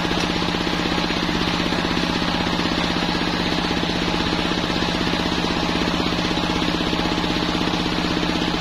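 Engine of a homemade circular sawmill running steadily with a fast, even knocking beat, the saw blade spinning freely between cuts.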